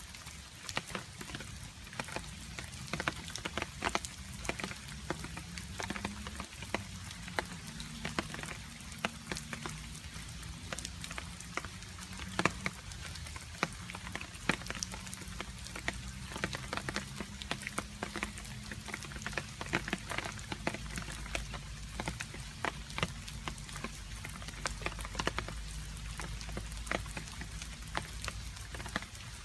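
Rain with water drops dripping and pattering, many sharp irregular drop hits over a steady wash of rain. A faint low wavering drone sits beneath through the middle.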